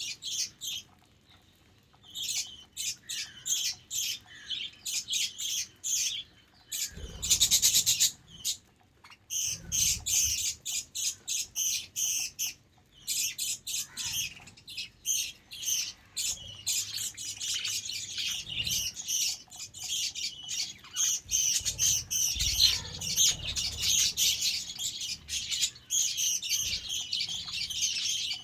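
A flock of budgerigars chirping and chattering in rapid, continuous bursts, with a short lull just after the start and a louder burst of calls about seven seconds in.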